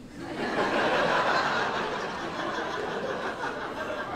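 Audience laughing, swelling quickly just after the start, loudest about a second in, then tapering off.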